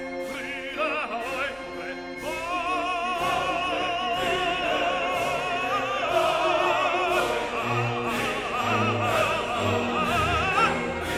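Background music: operatic singing with strong vibrato over an orchestra, growing fuller about two seconds in.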